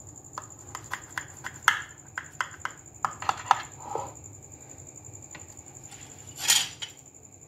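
A knife clicking and scraping against a glass baking dish while slicing a frozen mango-cream dessert: a quick run of light clicks over the first few seconds, then one louder scrape near the end.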